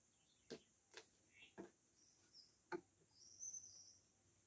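Near silence, broken by a few faint, sharp clicks and taps from handling fabric at the sewing machine, and a bird chirping faintly about three seconds in.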